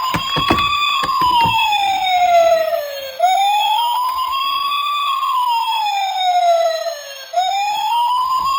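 Wailing siren for a toy ambulance minicar, its pitch slowly rising and falling in a repeating cycle of about four seconds, with a few sharp knocks and clicks in the first second or so.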